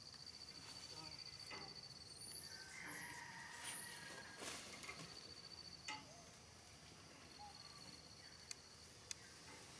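Faint forest ambience: an insect trilling steadily in a high, finely pulsed tone, with a few high bird chirps around the third second, a brief rustle near the middle and a few light clicks.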